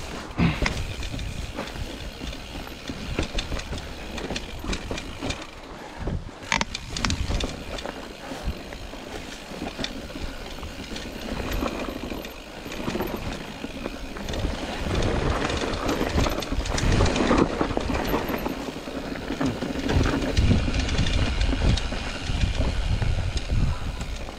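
Mountain bike rattling over a rough, rocky trail: tyres on stones and the chain and frame clattering, with uneven sharp knocks and a low rumble that grows louder in the second half.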